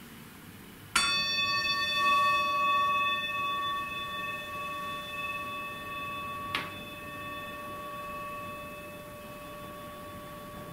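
Metal singing bowl held on the open palm, struck with a wooden striker about a second in and again more lightly some five seconds later, ringing with a long, slowly fading tone of several overtones.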